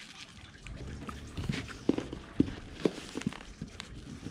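Handling noise from unpacking: a plastic-bagged reel handle and packaging being moved and set down on a stone table, giving a run of sharp knocks and taps, the loudest about two to three seconds in.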